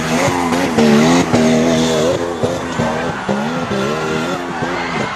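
Off-road 4x4's engine revving hard under load, its pitch surging up and down again and again as the tyres spin and throw dirt on a steep loose-dirt climb.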